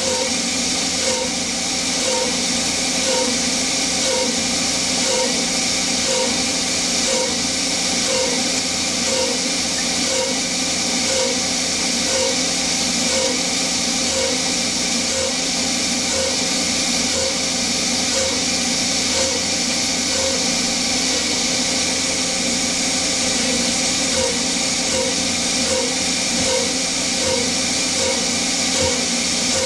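Steady hiss of an air mister blowing onto the cut of a small CNC lathe turning 6061 aluminium, over the hum of the running spindle and air compressor. A short blip repeats about once a second as the tool takes short cut cycles to break the swarf into chips.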